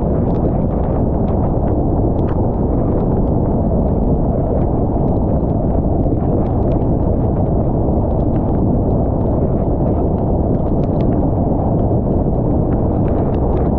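Steady road and tyre rumble heard from inside a car driving at highway speed on wet pavement, with scattered faint ticks.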